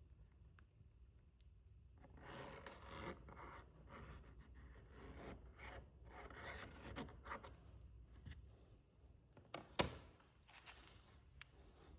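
Faint, irregular scraping and rubbing of a hand tool on wood over several seconds, then a single sharp tap or knock about ten seconds in.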